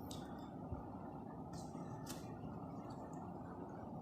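Quiet room tone with a steady low hiss and a few faint brief clicks and rustles, like a handheld phone being moved.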